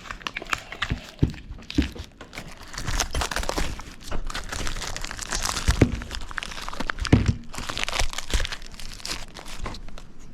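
Plastic and cardboard packaging crinkling and rustling, with small clicks and knocks, as new brake pads are unwrapped and handled.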